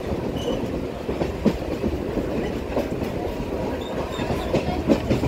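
MEMU electric passenger train heard from inside a coach while running: a steady rumble with irregular clacks and knocks of the wheels over the rails.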